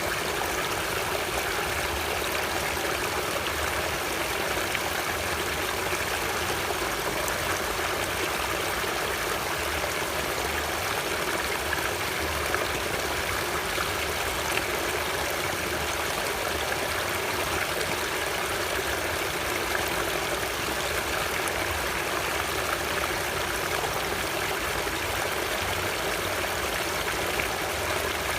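Natural flowing water, a steady even wash of noise with no breaks or changes.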